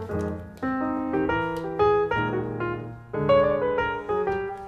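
Background solo piano music: chords and melody notes struck and fading away, a new note every half second or so.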